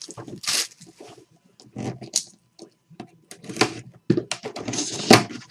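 Plastic shrink-wrap being torn and crumpled off a cardboard box, in irregular crinkling rustles with short pauses between them.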